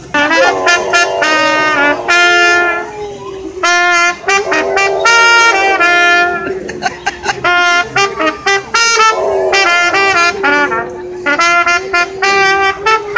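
Trumpet playing a Christmas carol melody in short phrases of held notes, with a dog howling along underneath, its long wavering howl rising and falling with the tune.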